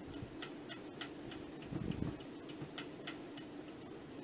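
Quiet, even ticking, about three ticks a second, like a clock, over a low steady room hum. A soft low bump comes about two seconds in.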